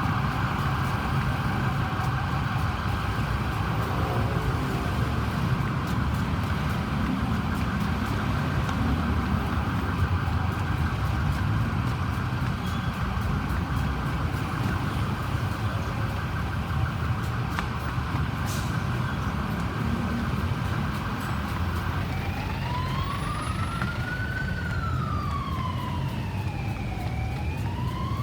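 Ambulance siren sounding in a fast cycling mode. About 22 seconds in it switches to a slow wail that rises and falls about every five seconds, over steady vehicle engine and road rumble.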